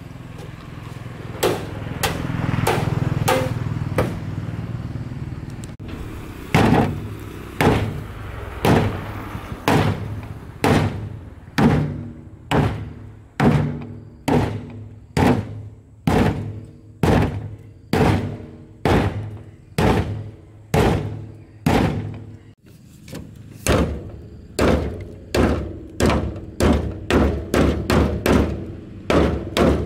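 Club hammer pounding a rusted bolt on the steel cargo bed of a 1999 Daewoo mini truck, about one blow a second, each blow ringing briefly. The blows start about six seconds in and pause briefly a little past the middle.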